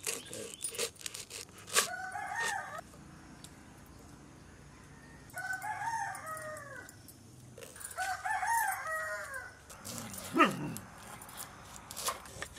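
A rooster crows three times, each crow lasting about a second, over the sharp taps of a knife cutting through garlic bulbs onto a wooden board; a loud knock comes about ten seconds in.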